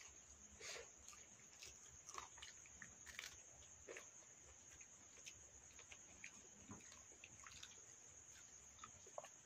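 Near silence with faint eating sounds: scattered small clicks and smacks of hand-eating and chewing. Behind them runs a steady high-pitched insect trill, likely crickets.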